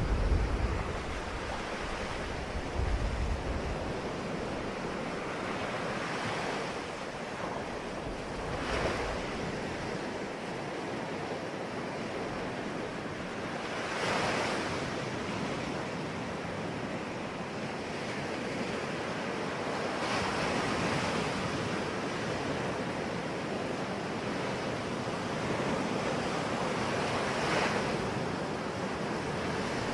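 Sea waves washing onto the shore: a steady rush with a swell of breaking surf every several seconds. Low wind rumble on the microphone in the first few seconds.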